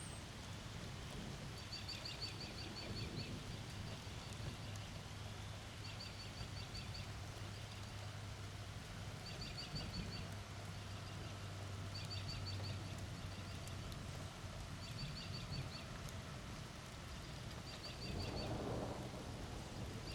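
Steady thunderstorm rain with a short, rattling high trill from a bird or insect that repeats about every two seconds, over a low steady hum that fades out about two-thirds of the way through. Near the end there is a brief swell of lower, rougher sound.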